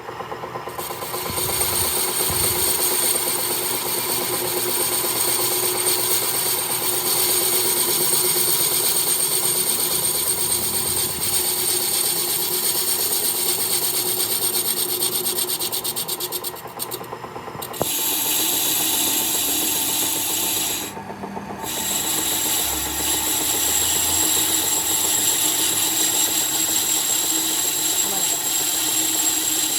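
A power tool working on metal: a steady noise with high whining tones, the top end dropping out briefly twice a little past the middle.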